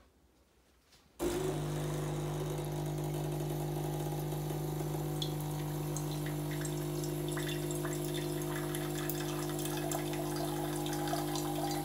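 Philips Senseo Latte Duo pod coffee machine's pump starts about a second in and runs with a steady hum, pushing hot water through the machine into the cup as a pre-rinse, with water running into the cup. The pump stops near the end.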